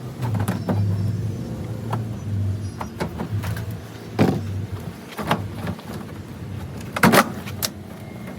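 Several sharp knocks and clatters of parts being worked loose on a washing machine being dismantled, the loudest about seven seconds in, over a low steady rumble.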